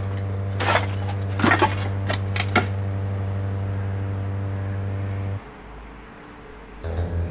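A few sharp cracks and knocks of wooden debris underfoot over a steady low drone of background music. The drone cuts out about five seconds in, and a pulsing low tone begins near the end.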